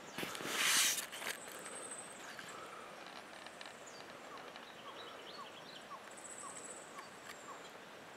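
A brief burst of wind noise on the microphone about half a second in, then several birds calling: high thin whistles and a run of short, evenly spaced chirps.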